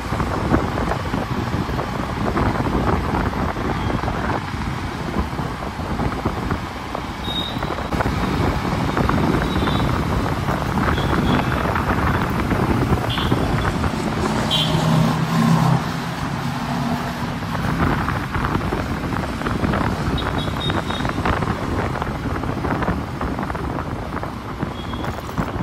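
Wind buffeting the microphone and road and traffic noise while riding a motorcycle in city traffic. A few short high tones sound now and then, and a low steady tone lasts about two seconds halfway through.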